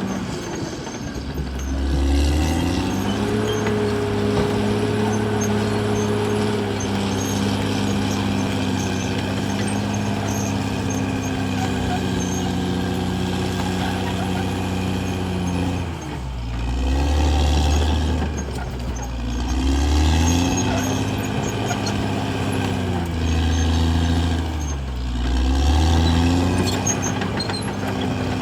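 CAT D6R XL bulldozer's diesel engine running hard, its note sagging and climbing back again four times.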